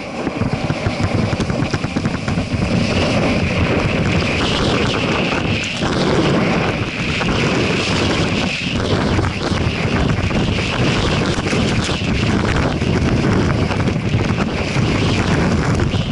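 Rushing wind on a skier's action-camera microphone mixed with the hiss and scrape of skis running over packed snow on a downhill run.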